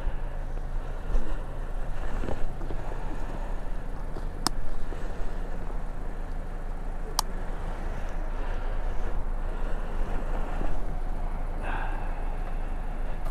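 Road traffic going by, a steady rumble of cars, with two sharp clicks about three seconds apart near the middle.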